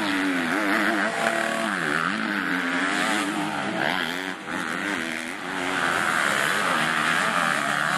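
Two motocross bikes racing close together, engines revving up and down repeatedly as the riders work the throttle through the corners; one is a Husqvarna 125 cc two-stroke.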